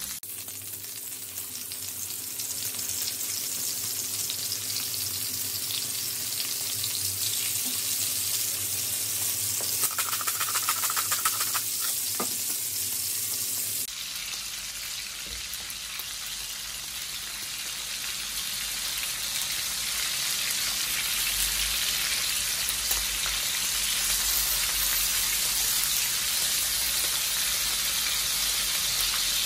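Wagyu beef and chopped meat frying in hot oil in a nonstick pan: a steady sizzle, with a few light ticks around ten to twelve seconds in.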